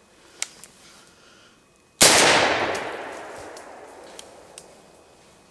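A single shot from a Benelli M2 semi-automatic shotgun about two seconds in: sudden and loud, with its report dying away over the next two to three seconds.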